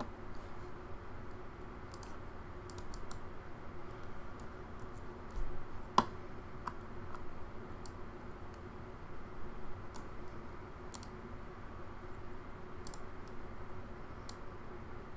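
Scattered clicks of a computer mouse and keyboard, with one sharper, louder click about six seconds in, over a steady low hum.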